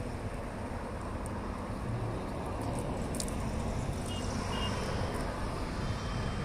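Steady low rumble of highway traffic going past.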